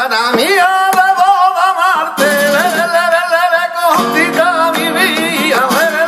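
Flamenco singing por tangos: a man's voice in long, wavering, ornamented held notes over flamenco guitar, with hand-clapping palmas keeping time.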